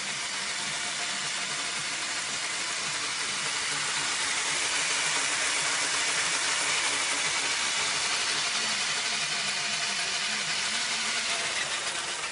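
A cordless drill mounted on a child's bicycle runs steadily, whirring as it spins the rear wheel through the chain. It gets a little louder about four seconds in.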